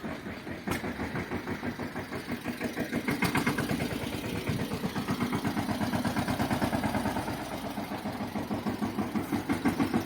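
Tractor engine running steadily with an even, rapid beat, about four or five pulses a second.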